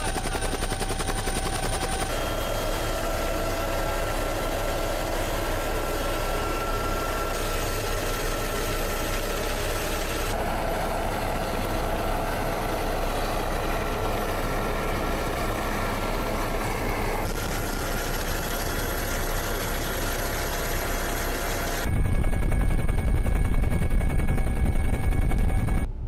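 Steady engine drone from naval exercise field footage. Its tone shifts abruptly every few seconds at each cut, and a louder low rumble takes over for the last four seconds.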